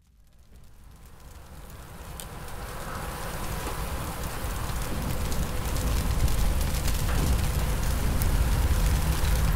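Maple sap boiling hard in a wood-fired evaporator pan: a steady hissing, bubbling boil over a low rumble, with a few sharp crackles. It fades in from silence over the first five or six seconds, then holds steady.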